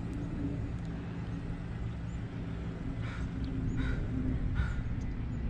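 Steady low outdoor rumble, with three faint short animal calls a little under a second apart in the second half.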